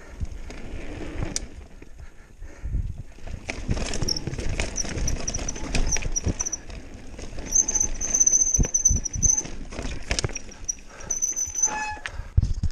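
Mountain bike descending a dirt trail: tyres rumbling over the ground with frequent knocks and rattles from the bike, and a high-pitched brake squeal coming and going from about four seconds in until near the end.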